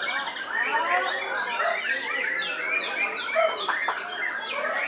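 Many caged songbirds, white-rumped shamas among them, singing over one another: a dense tangle of quick whistles and chirps with no break.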